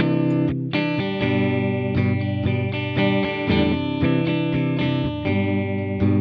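Music: distorted electric guitar playing sustained chords.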